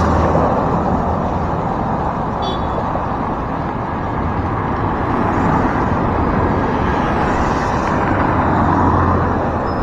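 Street traffic: vehicles driving past in a steady wash of engine and tyre noise, with a low engine hum that is strongest at the start and again near the end.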